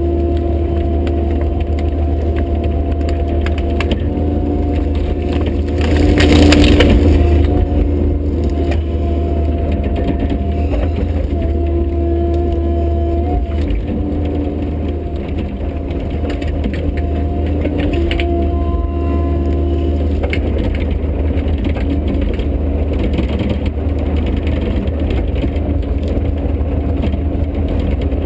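Bobcat E50 mini excavator's diesel engine running steadily under load, with hydraulic whine tones that shift in pitch as the controls are worked. About six seconds in, a tree cracks and splinters for a second or two as it is broken down.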